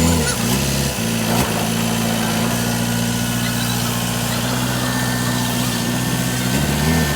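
JCB diesel engine running, its speed dipping and picking up briefly near the start and again near the end, steady in between.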